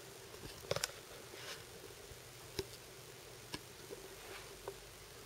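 Quiet room ambience with a faint steady hiss and hum, broken by a few small sharp clicks: a quick pair of clicks under a second in, then single clicks spaced about a second apart.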